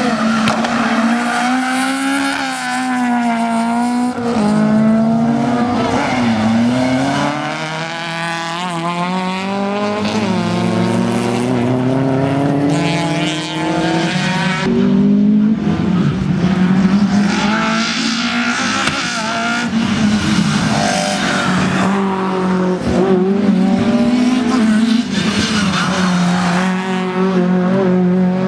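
Rally hatchback engines revving hard, the pitch climbing and falling again and again as the cars accelerate and lift for corners, at times two engines heard at once, with tyres squealing.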